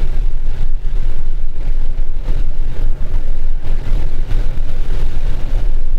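Car driving in heavy rain, heard from inside the cabin: a loud, steady low rumble of the car on the wet road with a wash of rain noise and irregular surges over it.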